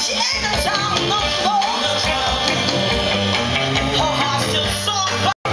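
Soul band with a horn section playing live, with a woman singing lead over a steady bass. The sound cuts out for a split second near the end.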